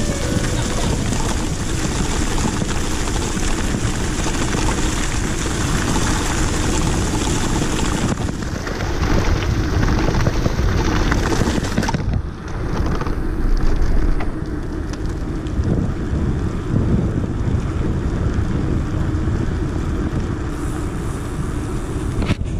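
Wind buffeting the camera microphone over the tyre rumble of a mountain bike riding along a leaf-covered trail and onto asphalt; the noise shifts abruptly about 8 and 12 seconds in.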